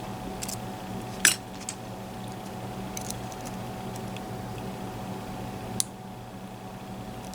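Lock picking tools working in the keyway of a Mul-T-Lock MT5+ lock: a few scattered small sharp metal clicks, the loudest a little over a second in and another near the end, over a steady low hum.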